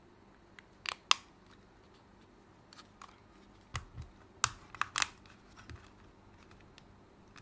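Plastic clips of a PS5 DualSense controller's shell clicking and snapping as the shell is pried open with a tool, the clips stiff on a new, never-opened controller. Scattered sharp clicks, the loudest about a second in and between four and five seconds in.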